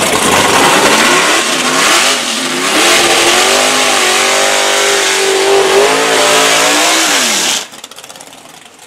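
Two street-racing cars, a Chevrolet Malibu and a Ford Mustang, launching side by side and accelerating hard at full throttle down a quarter-mile. The engine pitch climbs for several seconds and then drops just before the sound falls away suddenly, about seven and a half seconds in.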